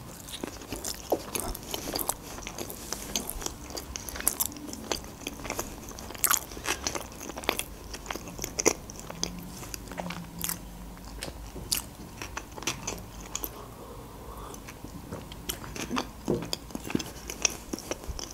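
Close-miked chewing of a mouthful of homemade sushi roll: irregular wet mouth clicks and smacks, several a second.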